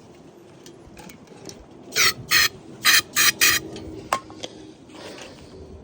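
Five short hissing spurts of aerosol starting fluid (ether) sprayed into the mower's carburetor, about two seconds in, followed by a single click. This is a priming shot for an engine that will not start on its own fuel.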